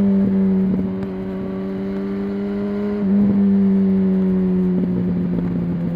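Yamaha R1's stock-exhaust inline-four engine running under way at steady revs that ease slowly down, with a brief dip in the note about three seconds in.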